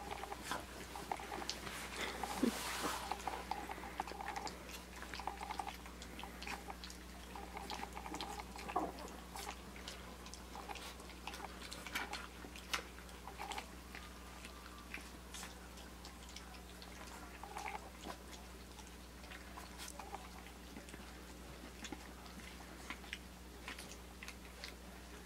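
Three-week-old Australian Shepherd puppies lapping and chewing wet puppy mush from a metal pan: a scattered run of small wet smacks and clicks over a steady low hum.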